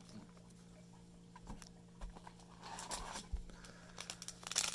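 Foil booster-pack wrapper crinkling and rustling in the fingers as it is picked at to tear open, starting with a few light clicks and growing louder near the end.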